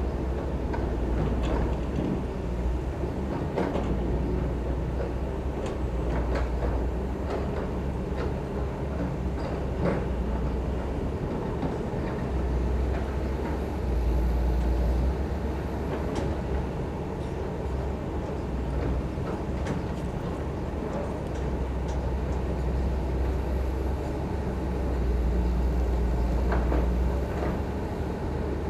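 Heavy diesel construction machinery running, a steady low engine rumble that swells about halfway through and again near the end, with scattered metallic clanks and knocks throughout.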